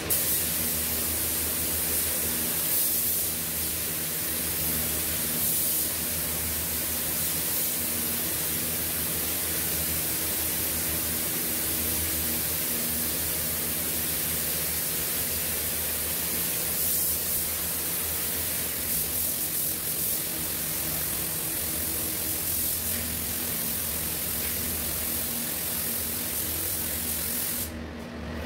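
Air-fed gravity spray gun hissing steadily as it sprays paint onto a plastic car bumper, over a steady low hum. The spray stops for a moment near the end.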